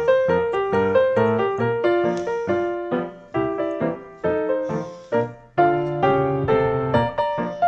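Background piano music, a run of quick, separately struck notes.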